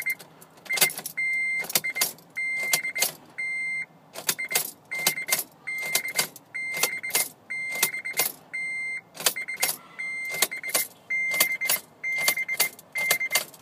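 A Honda Element that won't turn over: rapid bursts of clicking from the starting circuit, about every two-thirds of a second, alternating with a dashboard chime that keeps being broken off. The engine never cranks.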